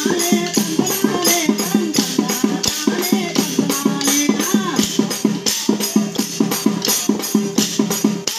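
Kolatam folk dance music: a wavering melody line over a fast, steady beat of sharp wooden clacks, about four a second, from the dancers' paired kolatam sticks and accompanying percussion.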